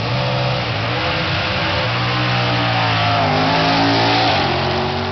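Car accelerating hard down a drag strip, engine revving high; its pitch dips briefly about three seconds in, then climbs again.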